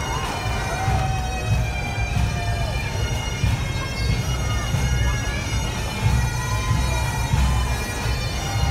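Highland bagpipes of a marching pipe band playing a tune over their steady drones, with uneven low rumbling underneath.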